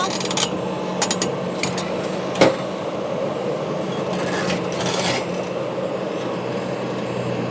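Excavator's diesel engine running steadily under a series of sharp clanks and knocks from the bucket and the material it is loading into a truck, the loudest about two and a half seconds in.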